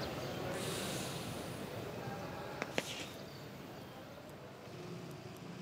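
Steady background ambience of hiss and low hum that slowly fades, with a brief hiss about half a second in and two sharp clicks in quick succession a little after the middle.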